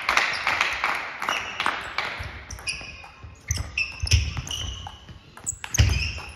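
Table tennis rally: a plastic ball clicking back and forth off the rubber bats and the table in quick strokes, with shoes squeaking on the hall floor and heavy footwork thumps, the loudest near the end.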